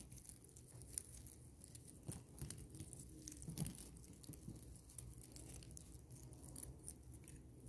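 Faint handling noises: scattered light clicks, taps and rustles as small objects are moved about on a cloth-covered table.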